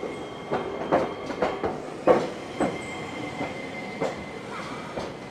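Iyotetsu city tram's steel wheels clacking over a spring switch, a run of sharp knocks spread over several seconds, with a thin steady high whine underneath.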